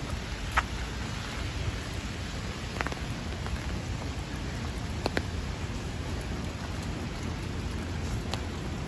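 Heavy rain falling steadily on wet pavement, an even hiss, with a few sharp ticks of drops or steps here and there.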